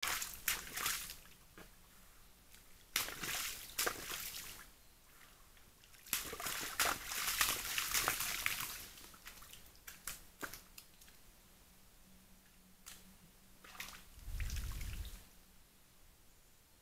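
Young red deer stag pawing and splashing in a muddy puddle: irregular spells of sloshing and splattering water and mud, with a low rumble lasting about a second near the end.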